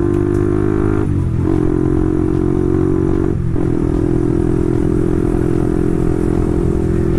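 Motorcycle engine and exhaust running steadily while riding. The note dips briefly about a second in and again about three and a half seconds in, then carries on.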